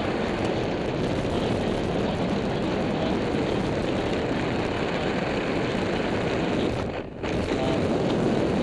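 Steady rush of airflow buffeting the microphone during tandem paraglider flight, dropping out briefly about seven seconds in.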